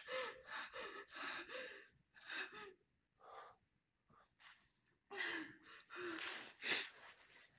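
A person breathing hard in short gasps, some with a faint voiced sound in them, pausing briefly about halfway through.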